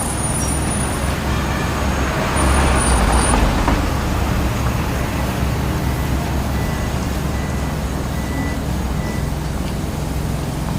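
A large engine running steadily with a low rumble, swelling louder for about a second and a half a couple of seconds in, with faint high squeals over it.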